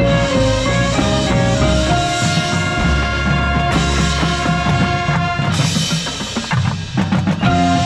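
Drum and bugle corps playing its field show: brass horns holding chords over drums and percussion. The horns thin out briefly about two-thirds of the way in under a bright cymbal-like wash, then come back on a held note near the end.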